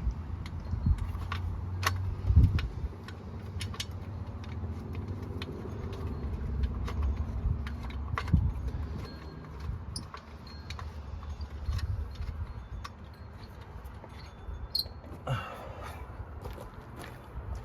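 Metal clinks and taps of a turbo heat shield and its bolts being fitted back in place and tightened with hand tools, with a few dull knocks and a brief scrape.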